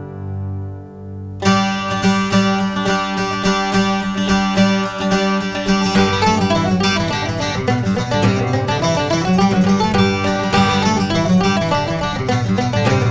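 Background music: a sustained chord that gives way about a second and a half in to fast, busy plucked-string playing in a bluegrass or country style, with a steady bass.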